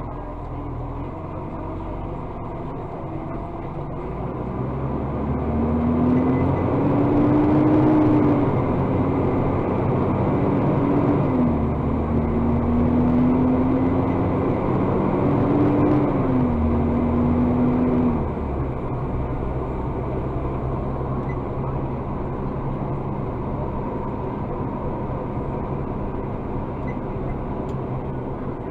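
Rubbish truck's diesel engine speeding up under load while the hydraulic bin lifter is worked from the joystick: the engine note rises about five seconds in, shifts up and down in pitch a few times, and drops back to idle about eighteen seconds in.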